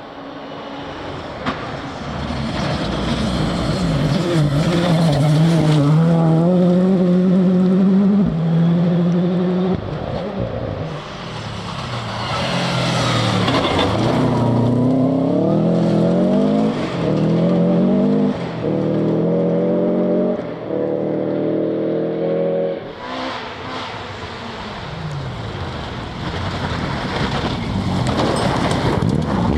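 Rally car engines at full throttle on a gravel forest stage. They rev up through the gears with quick gear changes, which come in a run of short climbs in pitch in the middle. The cars pass by, and the pitch falls away near the end.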